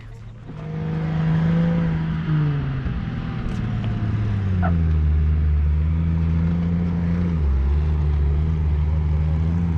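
The inline-six F engine of a 1965 Toyota FJ40 Land Cruiser comes up about half a second in and runs at low speed. Its pitch drops in two steps, then holds as a steady low drone.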